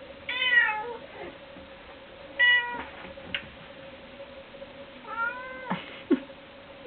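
Cat meowing three times, each call about half a second long, with a few short knocks in between and a faint steady hum underneath.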